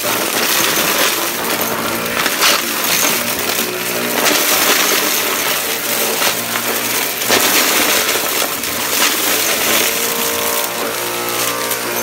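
Shark upright vacuum cleaner running on cardboard, its motor and brush roll sucking up small hard debris such as screws, washers and beads, which clatter and rattle up into the dust cup with sharp clinks here and there.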